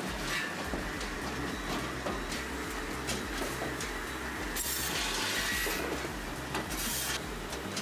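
Firewood processor running, with a steady mechanical noise and a clatter of knocks from the logs. Two louder hissing bursts come about halfway through and again near the end.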